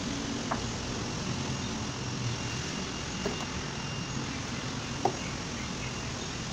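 Three light clicks from a rubber hose and its wire spring clip being handled and fitted onto a front-loading washing machine's plastic tub, the last one the sharpest, over a steady background hum.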